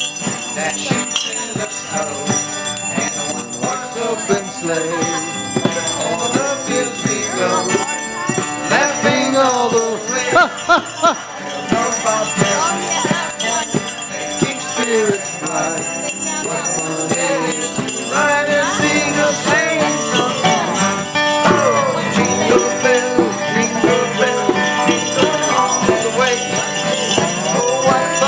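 Salvation Army handbells ringing without pause, over people singing a song with instrumental accompaniment.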